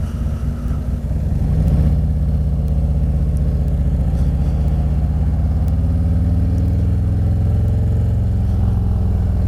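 Harley-Davidson V-twin engine running under the rider; about a second and a half in it gets louder and its note climbs as the bike accelerates, then it holds a steady cruise.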